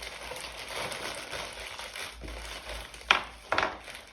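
Crinkling and crunching of something being crumpled or crushed, with two sharp, loud crunches about three seconds in, half a second apart.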